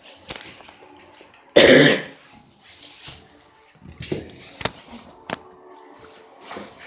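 A single short, loud cough about one and a half seconds in, followed by a few faint sharp clicks.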